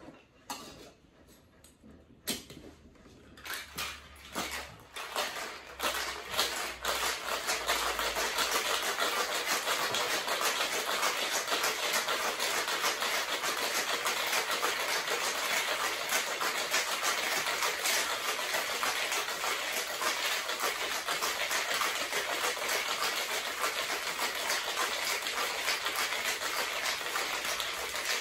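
Ice rattling hard in a metal cocktail shaker being shaken fast: a dense, continuous rattle that starts about six seconds in and holds steady. It is preceded by a few scattered clinks.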